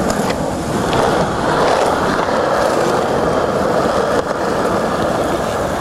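Skateboard wheels rolling steadily over a hard outdoor court surface, a continuous rolling noise with a few light clicks.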